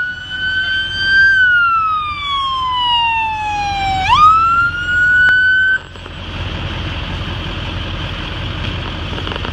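Fire engine siren wailing: a slow fall in pitch, a quick rise back up, then it cuts off suddenly about halfway through. After it, a steady low rumble of engines.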